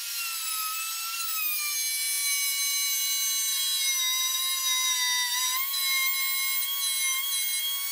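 Trend plunge router with a 1/4-inch bit cutting a curved slot in MDF, a steady high motor whine whose pitch sags a little about a second and a half in and dips again briefly around five seconds as the bit works through the cut.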